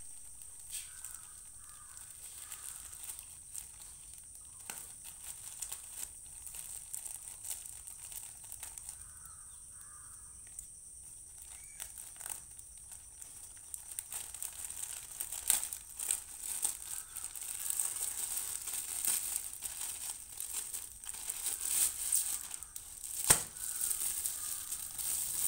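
A polythene courier mailer bag is crinkled and torn open by hand. The plastic crackling gets busier and louder through the second half, with one sharp crack near the end.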